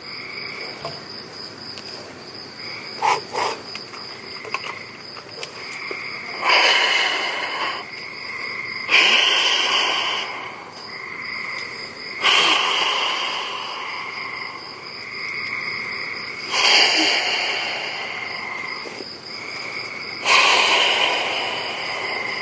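An air mattress being blown up by mouth: five long, forceful breaths blown into its valve a few seconds apart, over steady cricket chirring.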